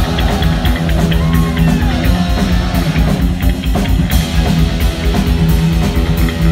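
Heavy metal band playing live and loud: distorted electric guitar over bass guitar and a drum kit with cymbals driving a steady beat.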